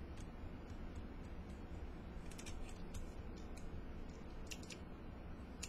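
Faint scattered clicks and ticks over a low steady hum as a mechanical vape mod with a rebuildable atomizer is handled and fired for a draw, with a small cluster of clicks about halfway through and another near the end.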